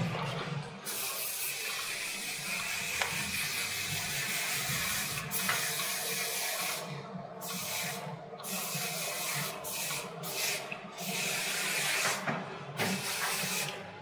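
Aerosol hairspray can spraying onto a customer's hair: one continuous hiss of about six seconds, then a series of short spurts.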